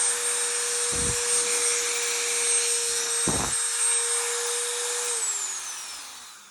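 Dremel 3000 corded rotary tool running unloaded with a steady high whine, switched off about five seconds in, its pitch falling as the motor spins down.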